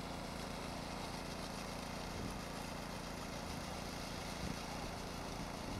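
Engine of a ride-on concrete power trowel running steadily.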